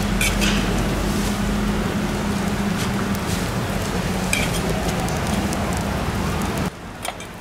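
Sorghum hotteok dough frying in oil on a griddle, a steady sizzle over a low hum, with a couple of sharp clicks. The sizzle drops abruptly to a much quieter level near the end.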